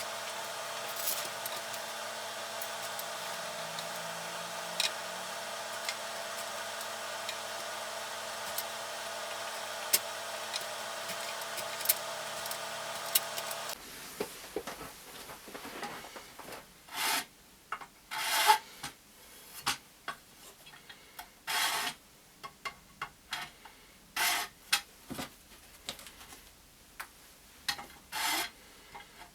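A steady hum with scattered light clicks, which changes abruptly about halfway through to hand rasping or rubbing strokes, as of filing or sanding on the guitar. The strokes are short and come irregularly, every couple of seconds, with small knocks between them.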